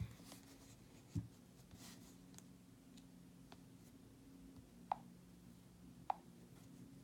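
Faint handling noises on a desk: a few light taps and clicks, one soft knock about a second in and two sharper clicks near the end, over a low steady hum.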